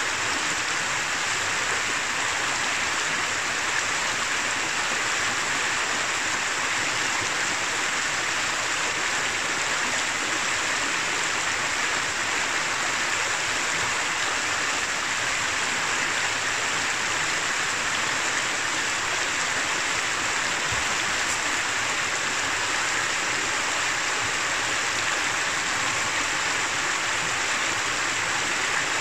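Shallow river running over a stony bed: a steady, unbroken wash of flowing water.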